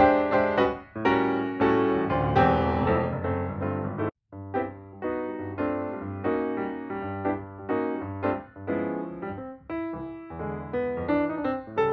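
Background piano music, a run of separate notes that cuts out for a fraction of a second about four seconds in, then carries on.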